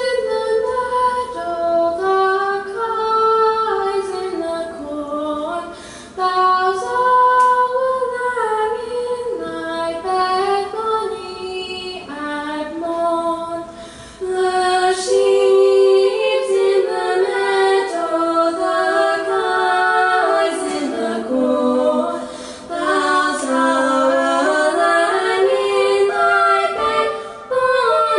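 A group of girls singing a cappella in harmony into microphones, the melody in phrases with short breaks between them.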